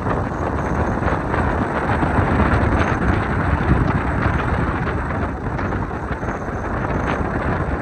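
Steady road and wind noise from a moving car: a continuous low rumble with no clear engine note.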